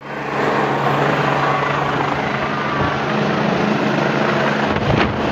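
Helicopter flying low overhead on its approach to land: steady rotor and engine noise. Near the end a low rumble of wind from the rotor downwash buffets the microphone.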